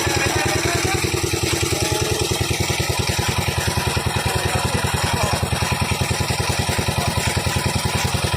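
Small engine running steadily at constant speed with a rapid, even chug, typical of a pump engine draining water.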